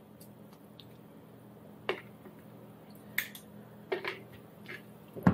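Spatula scooping mayonnaise out of a large jar into a bowl of potato salad: a few scattered clicks and soft knocks of the spatula against the jar over a faint steady hum, with a louder knock near the end.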